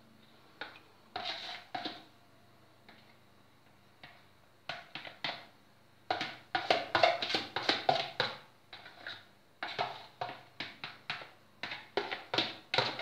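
A spoon knocking and scraping against a plastic mixing bowl while batter is poured out of it: irregular clatters, a few at first, then a busy run from about six seconds in.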